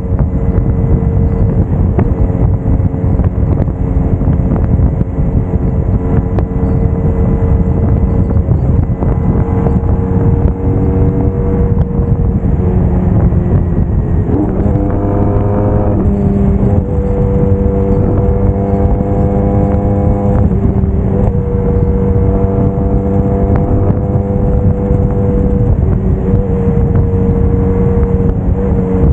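Braaap Moto4 motorcycle engine running under way at a steady speed, mixed with heavy wind rush on the microphone. About halfway through, the engine note drops, then climbs back up and settles at a new steady pitch.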